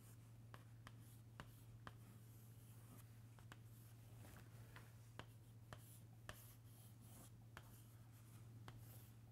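White chalk tapping and scraping faintly on a chalkboard as a diagram is drawn: a string of short, sharp strokes, over a steady low hum.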